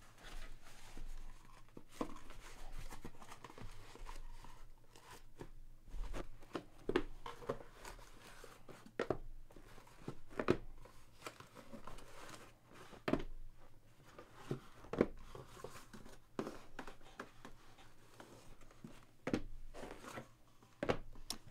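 Cardboard product boxes being lifted out of a cardboard shipping case and set down in a stack: scattered irregular taps, knocks and scrapes of cardboard on cardboard.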